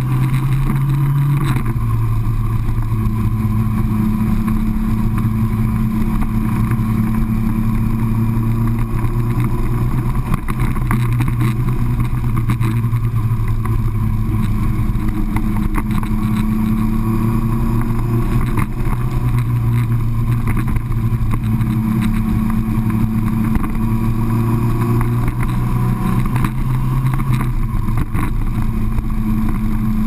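Yamaha R1 inline-four motorcycle engine running under way, heard from the fuel tank. It holds a mostly steady pitch, which drops once about a second and a half in and rises and falls slightly later.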